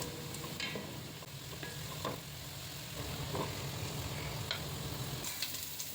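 Food sizzling in hot oil in a pot, a steady hiss with a few light ticks of stirring.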